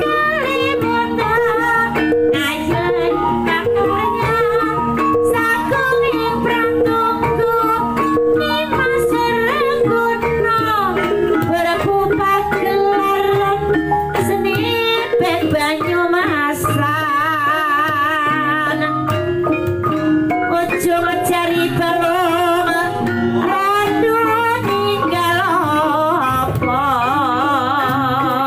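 Javanese gamelan ensemble playing a gending: bronze bonang kettle gongs, hanging gongs and a kendang drum, a steady dense interlocking texture, with a wavering melody line over it in the second half.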